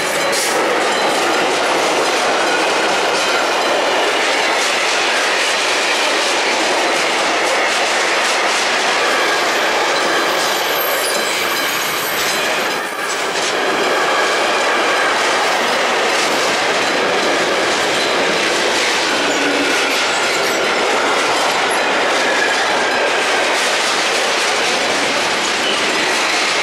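Railway wagons rolling past close by, a steady loud rumble of wheels on rails with clickety-clack over rail joints and a faint thin squeal of the wheels. The noise dips briefly about halfway through, then carries on.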